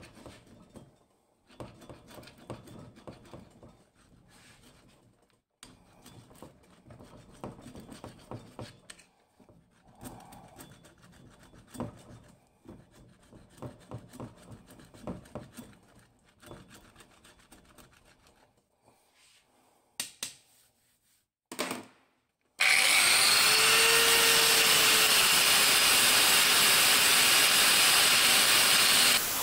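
A screwdriver blade scraping red paint off a steel anvil in short, irregular scratching strokes, with brief pauses. About three quarters of the way through, a Parkside angle grinder starts up much louder, with a whine that rises as it spins up, and grinds the anvil's surface in a steady hiss.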